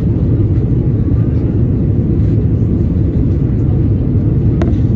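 Steady low cabin roar of a four-engine Airbus A340 in flight on approach, the engines and rushing airflow heard from a window seat, with a brief click near the end.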